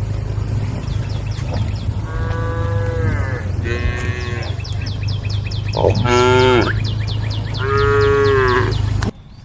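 Cattle mooing: about four long calls, the loudest about six seconds in, over a fast high-pitched chirping and a steady low hum. The sound drops off abruptly near the end.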